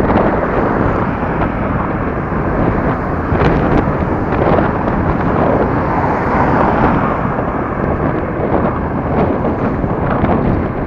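Wind buffeting the microphone of a camera on a moving vehicle, a loud, steady rumble mixed with road and traffic noise.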